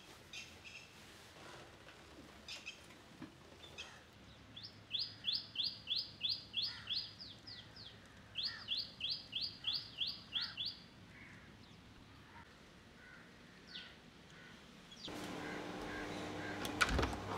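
A bird calling in two runs of rapid, sharp, high notes, about three or four a second, with a few fainter chirps around them. Near the end, a door's lever handle and latch click over a steady hum.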